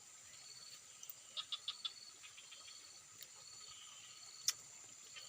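Steady high chirring of crickets in the background, with a quick run of short clicks about a second and a half in and one sharp click about four and a half seconds in.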